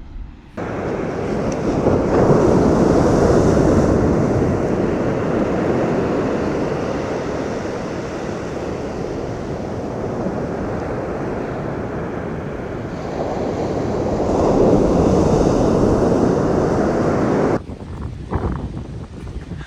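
Ocean surf washing onto a beach, mixed with wind buffeting the microphone, swelling louder twice about twelve seconds apart. It starts and stops abruptly.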